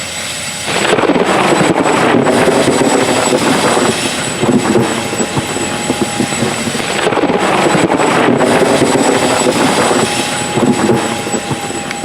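John Deere S790 combine harvester running loud and close while harvesting wheat: heavy engine and threshing machinery noise with a thin steady high whine. It swells louder about a second in.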